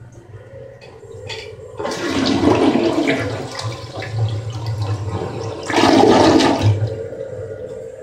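Glacier Bay dual-flush toilet flushing: water rushes into the bowl about two seconds in and swirls down, with a louder surge about six seconds in before it eases off.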